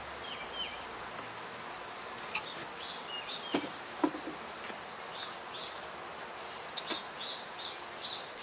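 Steady high-pitched chorus of insects, with a few light knocks about three and a half, four and seven seconds in.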